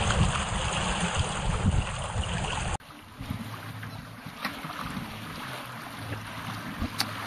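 Wind and water rushing past a small sailboat under way, with wind on the microphone. About three seconds in the sound drops abruptly to quieter wind and water, with a faint steady low hum and a couple of light clicks.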